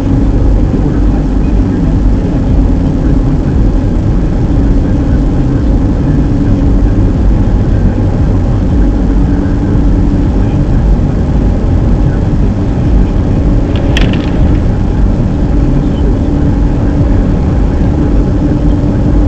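Car being driven: steady engine and road rumble with a low hum, and one sharp click about two-thirds of the way through.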